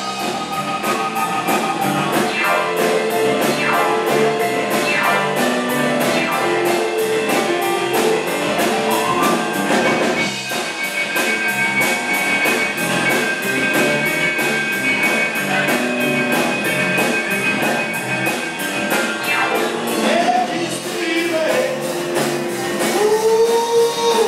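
Live band playing: electric guitar, keyboard and drum kit with a steady beat, and singing.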